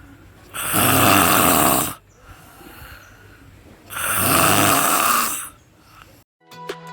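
A man snoring loudly: two long, rasping snores about three seconds apart, with quieter breathing between them.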